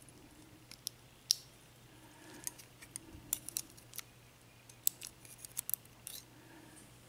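Scattered sharp, light metallic clicks and ticks of small lock parts and tools being handled as the pin chambers of an ABUS 83/50 padlock cylinder are emptied, pin by pin.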